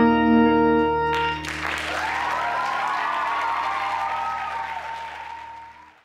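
The recorded song's final held chord rings on and stops about a second and a half in. Audience applause follows, with a cheer gliding up and down over the clapping, fading away near the end.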